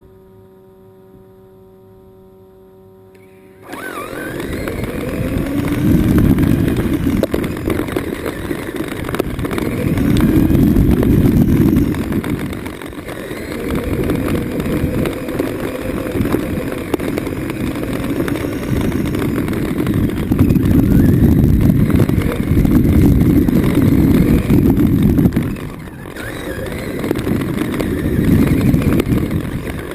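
Traxxas Summit RC truck driving. The electric motor and drivetrain whine in gliding pitches that rise and fall with the throttle, over a heavy rumble that swells and fades in waves. A steady low hum comes first, and the driving starts a few seconds in.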